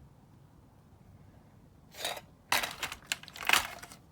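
Salvaged TV circuit boards and scrap parts clattering and clicking as they are handled and shifted, starting about two seconds in after a quiet stretch.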